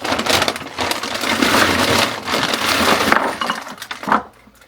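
Galvanized steel pipe fittings clattering and clinking together as they are rummaged through and handled, with a sharper knock about four seconds in.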